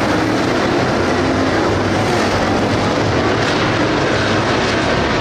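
Pack of 602 crate-engine dirt late model race cars racing around the track, their V8 engines making a loud, steady din.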